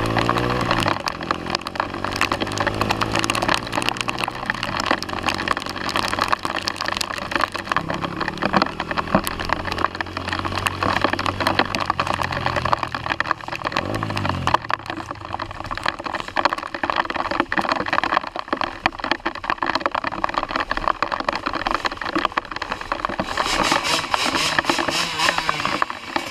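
Heavy rain crackling on the camera microphone over a 125cc motorcycle engine, whose note glides in pitch about a second in and again around halfway through. The crackle grows harsher near the end.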